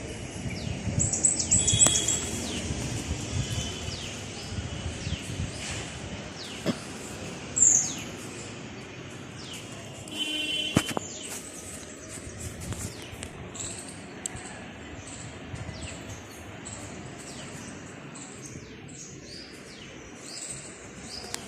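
Parrots chirping and calling: a steady run of short, high chirps and quick falling notes, with a louder, harsher call about ten seconds in.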